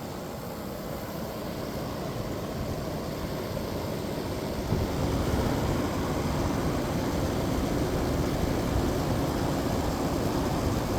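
1985 White Westinghouse window air conditioner with its case off, running steadily on its Matsushita rotary compressor, with wind buffeting the microphone. The rumble grows louder about five seconds in.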